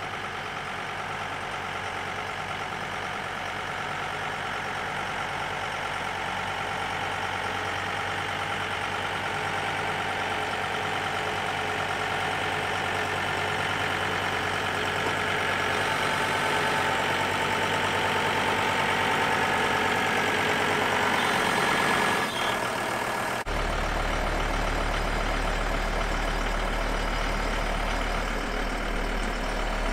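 John Deere utility tractor's diesel engine working under load as it moves a pickup truck by a chain, growing steadily louder as it draws nearer. About three-quarters of the way through the sound cuts abruptly to a closer, lower engine hum.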